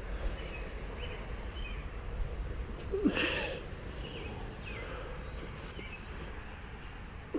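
Birds chirping faintly over a low outdoor rumble, with one short snort of breath from a person about three seconds in.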